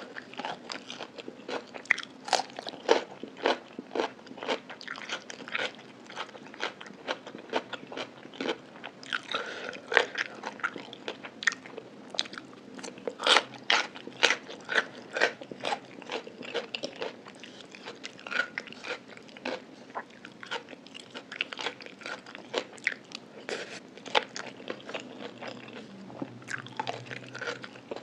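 A person chewing crunchy food close to the microphone: a dense, irregular run of sharp crunches, several a second.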